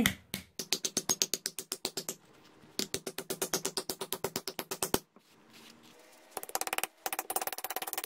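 A hammer rapidly tapping a small brass disc down into a carved hollow of a wooden dishing stump, about eight or nine light blows a second. The blows come in three runs, with short pauses about two and five seconds in, and the last run is lighter.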